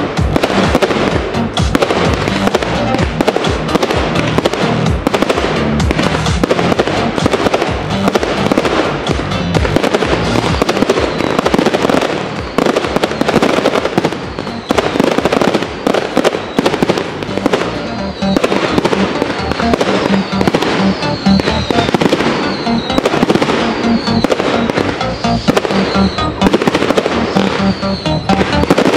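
Fireworks display: aerial shells bursting in quick succession, with dense bangs and crackling throughout and music playing along.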